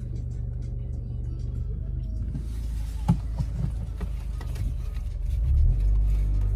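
Steady low rumble of a car on the move, heard from inside, growing louder about five and a half seconds in, with one sharp click about three seconds in.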